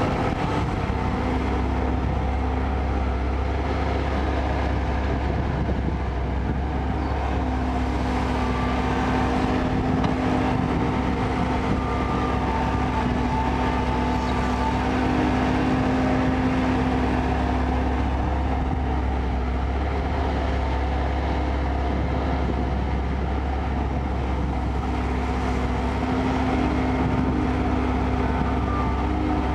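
Kobelco excavator's diesel engine running steadily while at work, a deep continuous hum with a higher whine coming and going.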